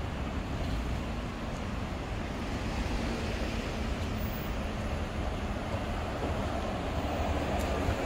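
Steady city street noise: a rumble of traffic on the road alongside, swelling a little near the end.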